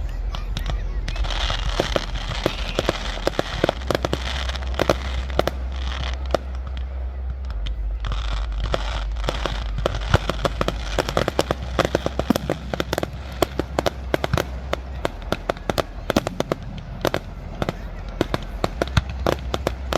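Fireworks display: a steady run of sharp bangs and crackling pops, coming thicker and faster in the second half.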